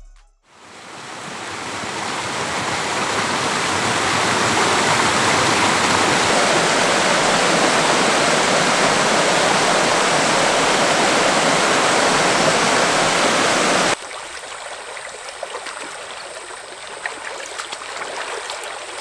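A steady rushing noise, like running water, swells up over the first few seconds, holds, then cuts off abruptly about fourteen seconds in. A much quieter background with faint scattered ticks follows.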